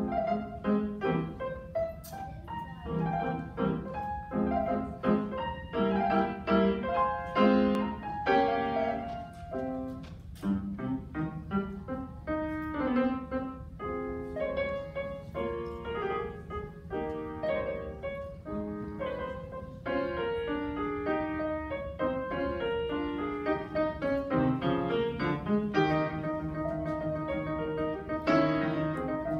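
A grand piano played solo: a busy passage of many quickly struck notes, moving to longer held notes near the end.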